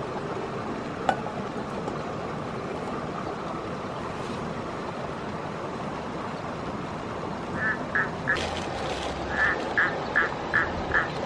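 Steady hiss of a lit canister gas stove burner, with one sharp click about a second in. In the last few seconds comes a run of about eight short quacking calls, a few tenths of a second apart.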